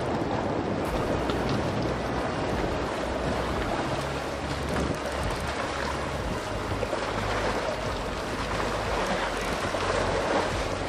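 Wind buffeting the microphone over choppy lake water lapping and splashing against shoreline rocks, a steady rushing noise with low rumble.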